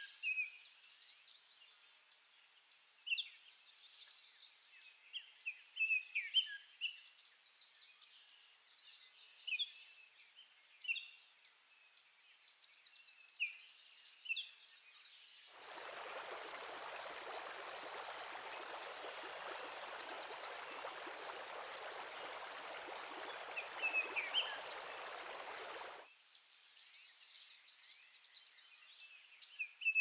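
Birds chirping in short, scattered calls; about fifteen seconds in, the steady rush of a small waterfall cuts in suddenly, runs for about ten seconds and cuts out just as suddenly, leaving the birdsong again.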